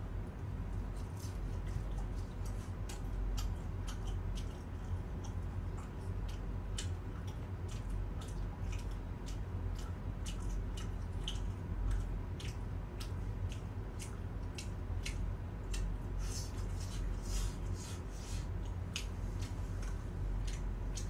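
Crispy fried chicken being bitten and chewed close to the microphone: a continuous run of sharp crackling crunches, thickest in the last few seconds, over a steady low hum.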